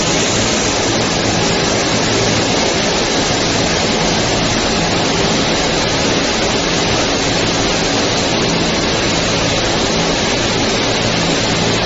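Ceiling-tile roller coating line running: a steady, loud rushing noise with a low machine hum underneath, unchanging throughout.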